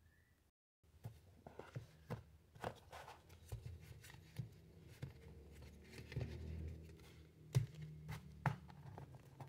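Handling noise as a folding knife is laid into its fitted presentation box and a paper leaflet set on top: scattered light taps and clicks with soft rubbing and rustling, with two sharper taps near the end.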